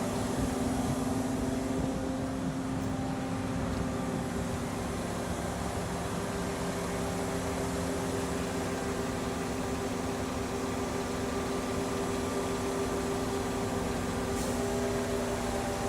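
Concrete pump's engine running at a steady, unchanging pitch.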